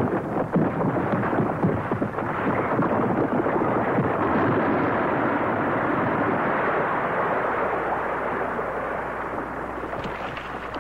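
Rockslide: rocks and earth sliding and tumbling down a slope. Many rock knocks come in the first couple of seconds, then the noise holds steady and dies away over the last few seconds.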